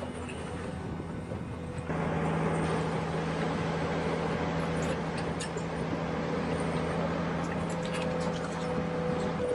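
Electric motors and gearing of a Carson RC cable excavator whirring steadily as its boom lowers and the clamshell grab is winched. About two seconds in the whir gets louder with a steady low hum added, as another motor joins in.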